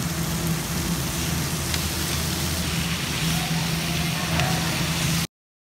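Tuna steak sizzling on a grill: a steady hiss over a constant low hum. It cuts off to silence for a moment near the end.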